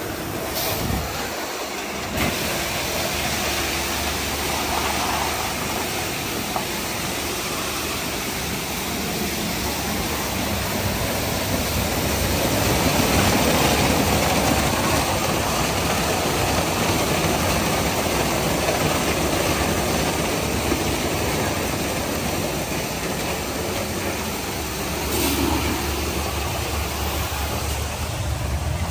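Christ Genius Vitesse automatic car wash running: a steady, dense rush of spray and machinery over a low constant hum, a little louder around the middle.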